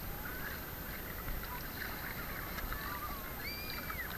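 Steady wash of seawater around swimmers, with faint distant voices of people on a crowded beach calling out now and then.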